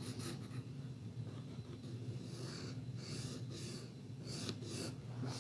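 Pencil scratching on paper in short, soft strokes as it traces along the outline of an axe head, over a faint steady hum.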